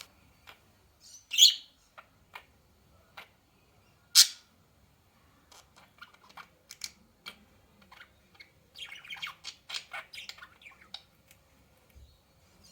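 A bird squawking: two loud, short, high calls a few seconds apart, then a quick run of short chirps and clicks.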